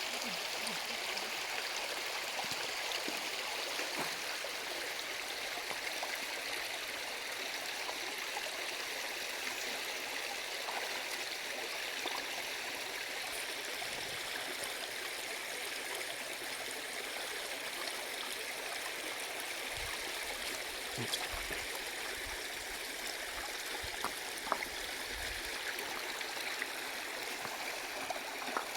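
Stream water flowing steadily over rocks, with a few short clicks and low thumps in the second half.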